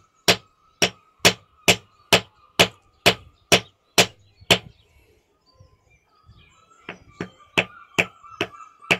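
Repeated hammer blows on a fossil-bearing rock to crack it open, about two sharp strikes a second. They stop about halfway through, then resume as quicker, lighter taps.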